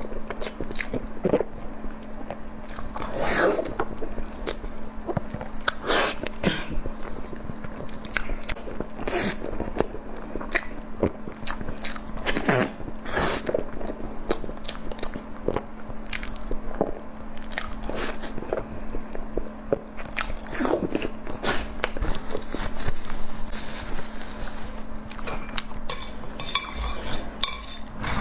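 Close-miked mukbang eating: repeated crunchy bites and chewing, coming at irregular intervals.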